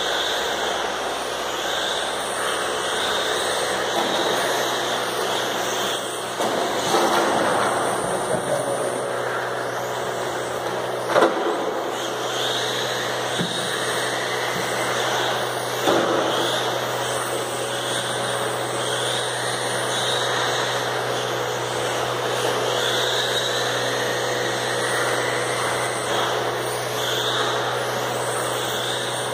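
Electric radio-controlled model cars racing on an indoor carpet track, their motors whining up and down in pitch as they accelerate and brake, over a steady low hum. A sharp knock comes about eleven seconds in, with smaller ones near seven and sixteen seconds.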